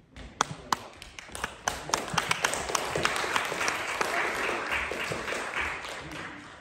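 Audience applauding: a few scattered claps at first, filling in about three seconds in to steady applause, then dying away near the end.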